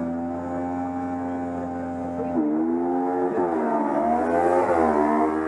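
A small open-wheel race car's engine holds steady revs at the start line, then from about halfway through is revved up and down several times before the launch.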